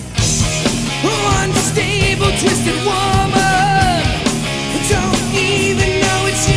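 Rock band recording in an instrumental break: drums and bass under a lead line whose notes bend and waver.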